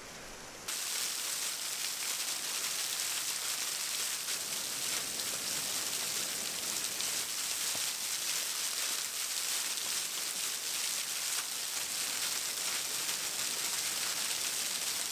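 Steady rushing hiss of water at the shore, surf and shallow running water, cutting in at a higher level about a second in.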